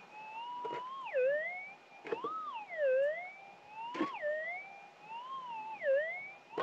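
Minelab GPX 6000 metal detector's audio tone warbling up and down in pitch, about five times, as the coil is swept back and forth over a buried target. A few short knocks come between the sweeps.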